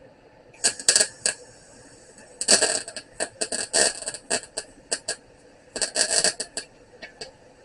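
MIG welder arc crackling in short stop-start bursts, in three groups with the longest about two and a half seconds, as a nut is welded onto a broken bolt stub to back it out.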